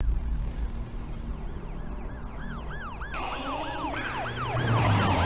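Police car siren in a fast yelp, a quick up-and-down wail about three times a second, coming in about a second and a half in and growing louder over a low rumble. About three seconds in, a broad rushing noise joins it.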